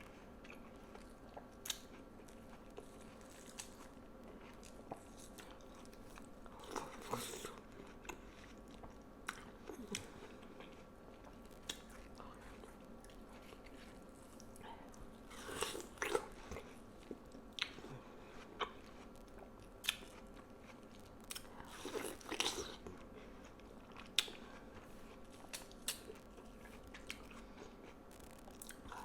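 Close-miked eating of juicy watermelon: crisp bites and wet chewing, in scattered clicks with louder bursts of crunching about 7, 16 and 22 seconds in.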